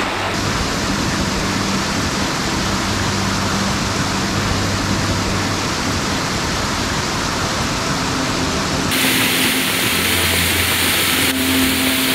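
Loud, steady rush of water from a swollen mountain stream, its hiss turning brighter about nine seconds in.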